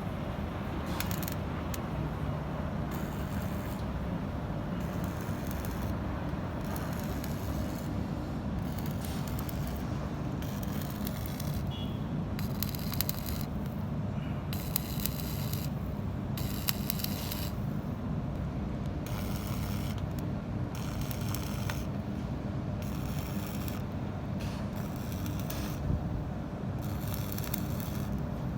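Stick (shielded metal arc) welding on stainless steel pipe: the arc gives a hissing crackle that flares up and dies back in short, irregular spells over a steady low rumble.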